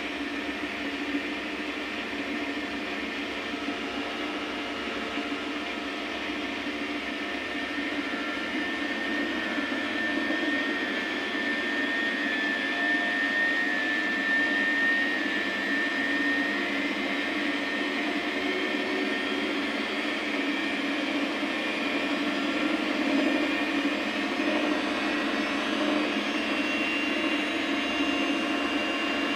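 Samsung front-loading washing machine spinning its drum on an 800 rpm cycle: a steady mechanical run with a motor whine that grows louder about a third of the way in, and a higher whine joining near the end.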